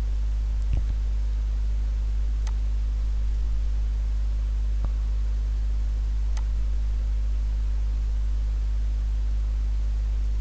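Steady low electrical hum with an even hiss and no voice, the noise floor of a recording in which the voice has not come through. A few faint clicks sound over it.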